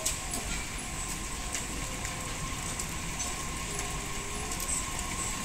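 Tobu 60000 series electric train pulling into the platform, a steady rumble of wheels and motors as it slows.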